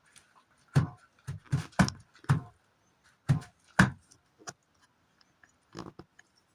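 A series of sharp knocks and thumps, about nine at uneven spacing, some in quick pairs, with a few light clicks between them.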